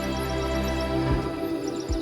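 Calm background music of sustained held tones, with low thuds about a second in and again near the end.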